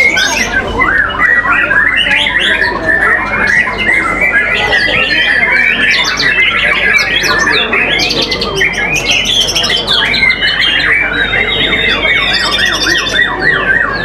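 White-rumped shama singing a rapid, varied, non-stop song of chirps, quick whistles and trills, overlapped by other shamas singing at the same time so the song is a dense, unbroken tangle.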